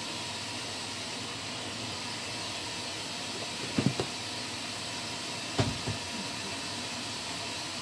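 Kitchen knife chopping raw shrimp on a wooden cutting board: a few sharp knocks of the blade on the board around the middle and a couple more later, over a steady hiss.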